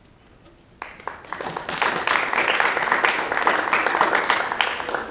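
Audience applauding: clapping breaks out about a second in, swells, and begins to die away near the end.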